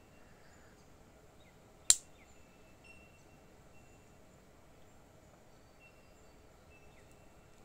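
A single sharp click about two seconds in, from the opened iPod Nano 4th gen and its screen assembly being handled during disassembly. Faint, short high chirps come and go in the background.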